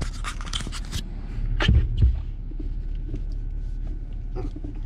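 A scraping rustle, then two low clunks about a quarter second apart as the transfer-case lever of a 2019 Jeep Wrangler Rubicon is handled. Under it all runs the steady low hum of the engine.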